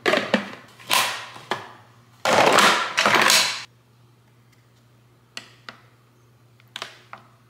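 Plastic handling of a Ninja Creami pint container and lid: a few sharp knocks, then a loud scraping rattle for over a second that stops abruptly, followed by a few faint clicks from the machine's program dial and buttons.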